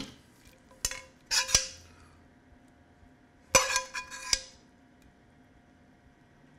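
A metal spoon scraping and clinking against a skillet while scooping out caramelized onions. There is a click just under a second in, then two short spells of scraping and clinking with a brief metallic ring: one around a second and a half in, one around three and a half to four and a half seconds in.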